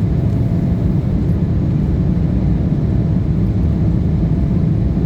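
Steady low rumble of a jet airliner's engines and rushing air during a departure, unbroken throughout, with a faint steady whine above it.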